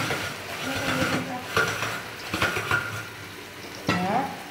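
Kitchen clatter: metal utensils and cookware knocking and scraping in irregular strokes, with brief voices in the background.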